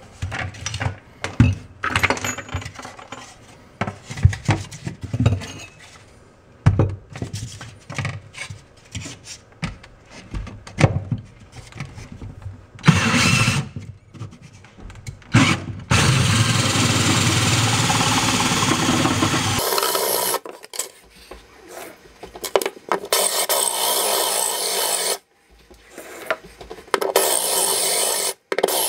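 Electric drill driving a diamond hole saw, grinding into a travertine backsplash tile through a guide template to cut a circle that lets the tile be broken out. After a spell of irregular knocks and clicks, it grinds steadily for about six seconds, then for several seconds twice more, stopping in between.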